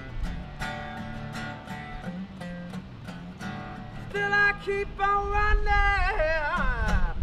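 Acoustic guitar strummed and picked steadily. About four seconds in, a man's singing voice comes in over it, louder than the guitar, with a long swooping slide in pitch near the end.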